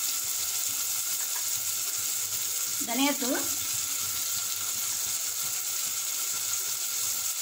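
Onions and tomatoes frying in hot oil in a pressure-cooker pan, a steady even sizzle.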